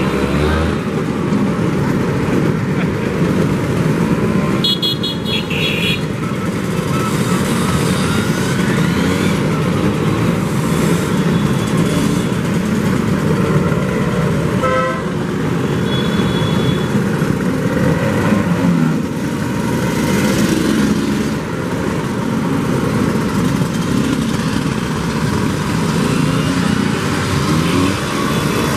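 A procession of vintage Vespa and Lambretta scooters riding past one after another, their small two-stroke engines running and revving in a steady overlapping stream. Scooter horns toot about five seconds in and again near the middle.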